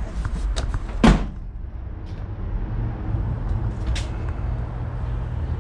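A pickup truck's rear door shut with a single solid thud about a second in, then a lighter click about four seconds in, over a steady low rumble.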